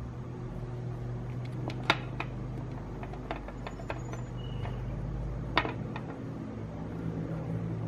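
Small plastic Meccano parts clicking and tapping against each other and a glass tabletop during assembly, with two sharper knocks, about two seconds in and near six seconds, over a steady low hum.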